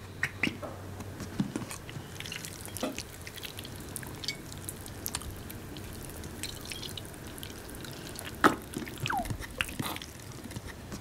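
Quiet room ambience with scattered small clicks and taps, like drips, a sharper knock about eight and a half seconds in, and a short squeak falling in pitch just after it.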